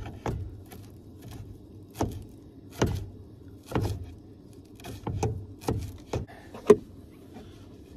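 Knife chopping parsley on a cutting board: about a dozen irregular knocks of the blade hitting the board, the loudest near the end, over a low steady rumble.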